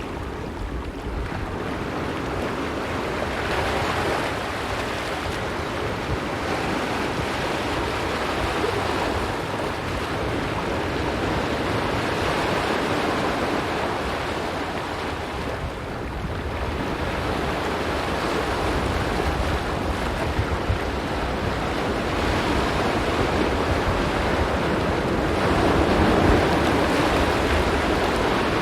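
Ocean surf washing onto a rocky beach: a continuous rush that swells and eases every few seconds, with wind rumbling on the microphone underneath.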